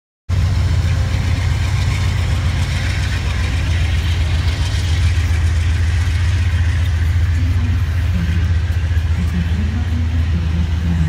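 A train at the station platform: a loud, steady low engine rumble with a hiss above it, starting suddenly just after the start. Faint voices come in near the end.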